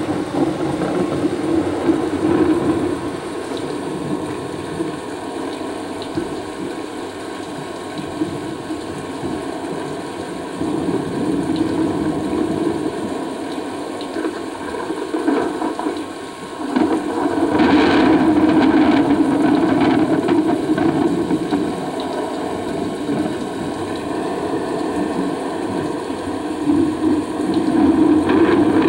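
Recorded thunderstorm sound effect, rain and thunder, played back over loudspeakers. A continuous rushing noise swells into rumbles several times, with the loudest and sharpest a little past halfway.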